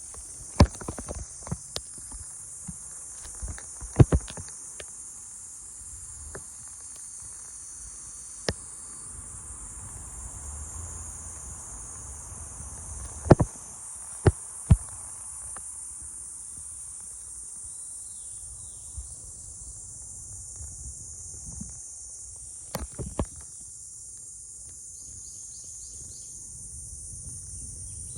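A steady, high-pitched chorus of summer insects buzzing without a break. A few sharp clicks or knocks cut through it, the loudest about four seconds in and again around thirteen to fifteen seconds in, and a few faint bird chirps come near the end.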